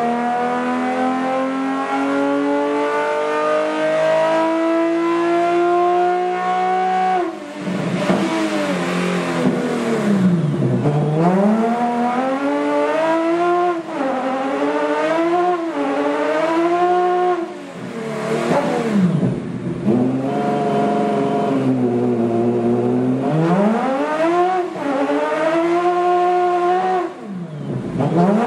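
Nissan-based Sodemo race engine running on a dynamic engine dyno. For the first several seconds its revs climb steadily, then drop sharply. After that they swing rapidly up and down, with several deep dips, as the bench reproduces the wheel slip and grip of an ice race.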